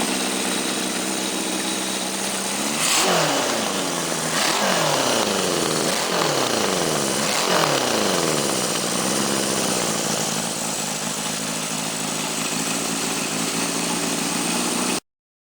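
Rebuilt 1974 Honda CB750 K4 air-cooled inline-four, bored to 836 cc with open air filters, running on a test stand. It idles steadily, is blipped four times in quick succession and once more lightly, then settles back to idle before the sound cuts off suddenly near the end.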